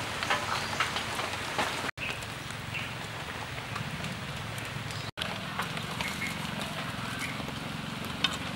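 Steady outdoor background hiss with a low hum and scattered small clicks, broken twice by a brief dropout. Near the end a single sharp knock as a cleaver cuts through a fried egg ball onto a wooden chopping board.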